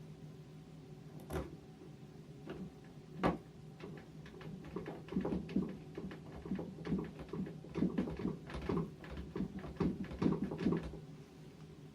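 Small screws being driven by hand with a screwdriver into a keypad door lock's cover piece: a couple of separate clicks, then from about four seconds in a dense run of quick clicks and scrapes that stops about a second before the end.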